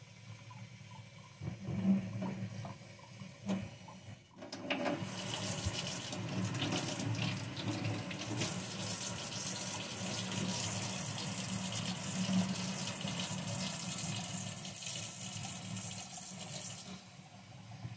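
Kitchen faucet running while rice is rinsed by hand in a bowl of water. About four seconds in, the sound grows louder and hissier as the stream falls straight onto the stainless-steel sink while the rinse water is poured off, and it drops back shortly before the end.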